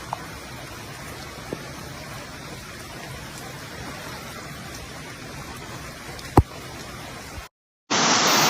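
Steady rushing hiss of storm water, with a few sharp clicks, the loudest about six seconds in. Near the end the sound cuts out briefly and a louder rush of water starts.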